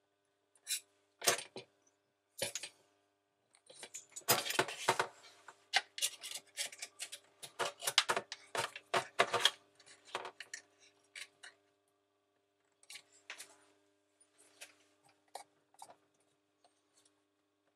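Small clicks, scrapes and taps of a thin wire hook tool and fingers working against the dishwasher's plastic sump and stainless-steel tub, with cloth rustling, while the new sump seal is pressed into place. The clatter is busiest from about four to ten seconds in, then thins to occasional taps.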